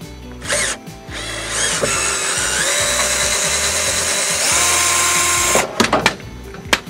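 Cordless drill running in reverse to back out a stainless steel rub-rail screw: a short blip, then about four and a half seconds of motor whine that rises in pitch in steps and then holds steady before stopping. A few sharp clicks and knocks follow near the end.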